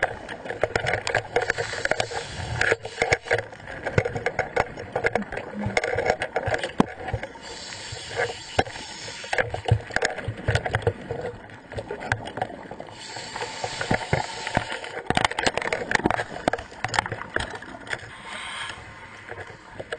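Underwater sound of a scuba dive: a hissing regulator breath about every five to six seconds, with bubbling and many scattered knocks and clicks.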